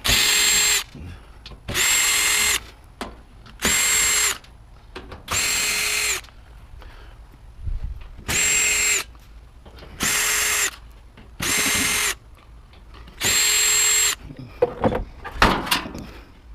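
Power drill run in eight short bursts of under a second each, each at a steady pitch, as a scrap appliance is taken apart to get at its wires. Near the end come several short clattering knocks.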